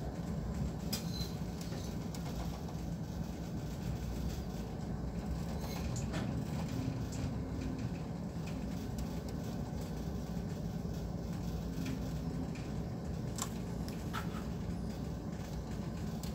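Steady low rumble of a handysize cargo ship underway in a rough sea: the ship's engine drone mixed with wind and rushing waves, with a few faint clicks.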